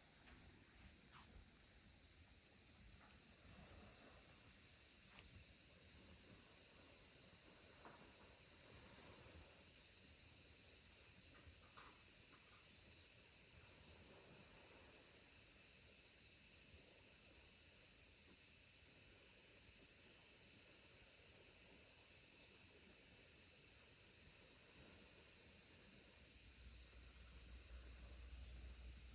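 A steady, dense, high-pitched chorus of insects that swells over the first several seconds and then holds, with a few faint clicks beneath it.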